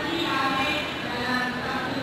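A voice, with several drawn-out pitched notes, ringing in a large hall.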